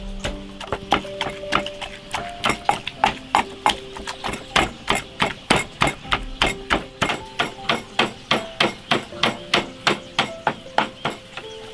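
Wooden pestle pounding food in a glazed clay mortar: a steady run of sharp knocks, about three a second.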